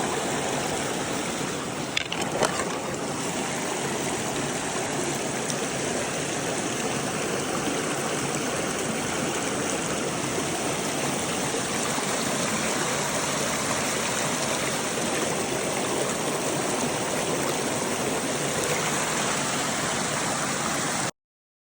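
Mountain creek water running steadily over rocks, an even rushing sound. A couple of brief knocks come about two seconds in, and the sound cuts off abruptly just before the end.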